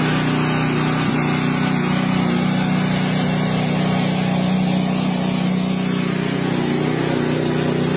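Construction machinery running steadily: a constant engine-like drone with a loud hiss over it.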